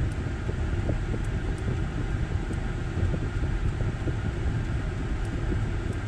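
Chevrolet Tahoe's A/C blower fan blowing steadily through the dash vents, with the engine idling underneath, heard inside the cab. The freshly recharged system is running and blowing cold.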